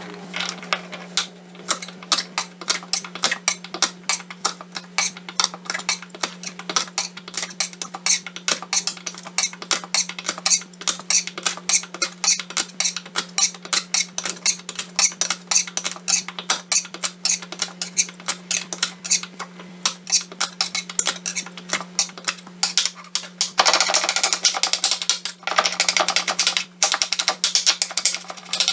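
Kitchen knife chopping and crushing garlic cloves on a wooden cutting board: a few knocks of the blade on the board each second, quickening into a fast run of mincing near the end. A steady low hum sits underneath.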